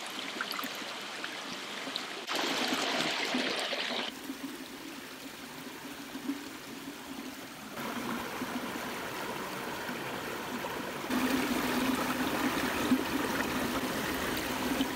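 A small rocky brook running over and between stones: a steady rush and trickle of water that jumps abruptly in loudness a few times.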